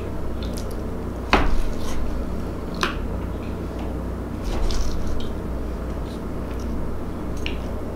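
Wooden knife and fork cutting through barbecue-sauced boneless ribs on a wooden board, with wet squishing sounds. There are two sharp clicks of the utensils, about a second and a half in and near three seconds, plus a few fainter ticks, over a low steady hum.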